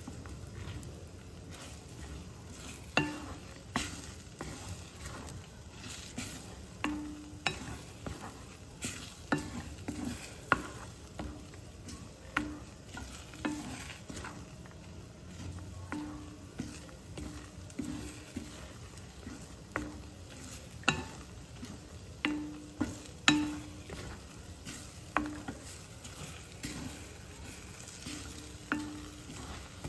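A spatula stirring and scraping egg bhurji around a stainless steel kadai. It gives sharp, irregular knocks against the pan roughly every second or two, each with a short metallic ring, over a faint steady sizzle of frying.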